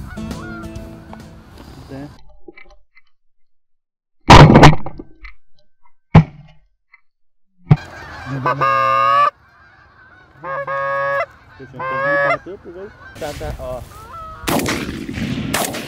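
Canada goose honking in three bouts of wavering calls, beginning a little past the middle. Before that come a couple of sharp, very loud knocks, and a guitar tune fades out at the start.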